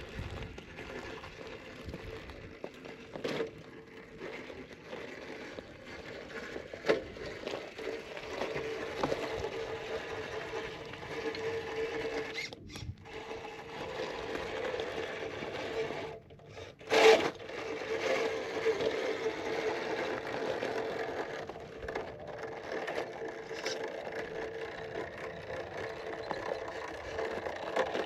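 A 1/10-scale RC rock crawler's electric motor and gear train whirring steadily as it crawls over rocks, with tyres and chassis scraping and clicking on the rock. There is a sharp knock about 17 seconds in.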